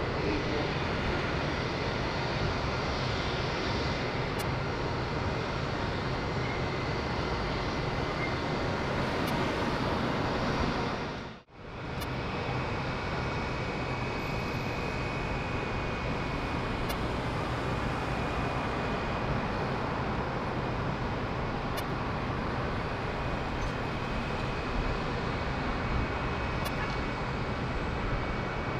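Airliner engines running steadily, a dense rumble with a thin high whine over it. The sound cuts out for an instant about eleven seconds in, then carries on at the same level.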